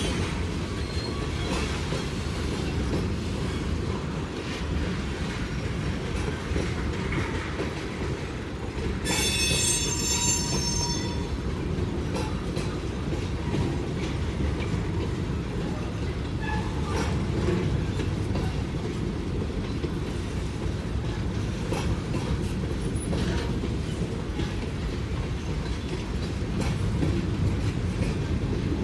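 Freight train's tank cars and boxcars rolling past: a steady low rumble of steel wheels on rail with scattered clicks at the rail joints. About nine seconds in, a high-pitched wheel squeal lasts about two seconds.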